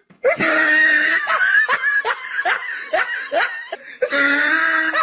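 High-pitched laughter: a drawn-out laugh, then a run of short, quick laugh pulses about three a second, then another drawn-out laugh near the end.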